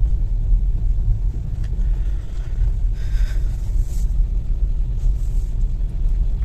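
Car driving slowly, a steady low rumble of engine and road noise heard from inside the cabin.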